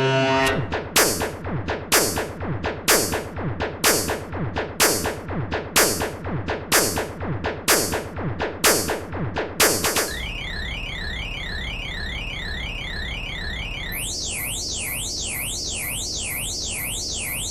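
Black MIDI rendered by a synthesizer, thousands of notes at once. For about the first ten seconds it pulses about twice a second with dense falling sweeps. Then it turns into high notes gliding up and down in a steady zigzag, and a second, higher zigzag joins near the end.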